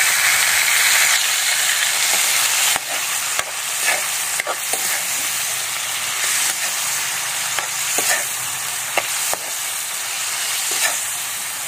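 Raw chicken pieces sizzling in hot oil in a metal wok, with a steady frying hiss. A spatula stirs and knocks against the pan several times.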